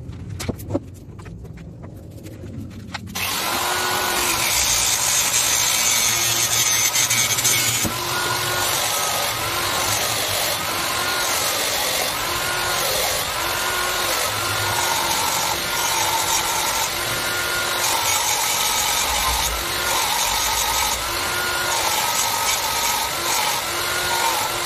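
Small electric angle grinder with a thin cutting disc running and cutting into PVC pipe, starting about three seconds in. Its motor whine dips in pitch again and again as the disc is pressed into the plastic.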